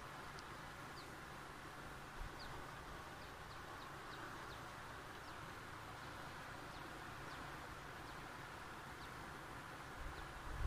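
Faint, steady outdoor ambience: an even hiss with scattered short, high, falling chirps. A low rumble comes in near the end.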